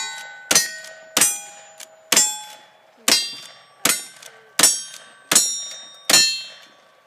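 Black-powder cartridge rifle fired rapidly at steel targets: about nine sharp shots, roughly one every three-quarters of a second, each followed by the ringing clang of a struck steel plate. The last shot comes about six seconds in and its ring fades away.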